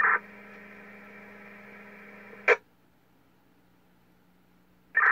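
Uniden BC780XLT scanner receiving an open police radio carrier with no voice: a steady hum with a low steady CTCSS tone under it. Short squelch bursts come at the start and about two and a half seconds in, and the carrier drops out to near silence after the second one. Another burst comes near the end.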